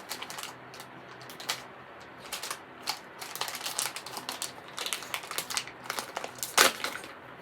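Rapid, irregular crinkling and clicking as plastic or foil packaging is handled by hand, with a louder crackle near the end.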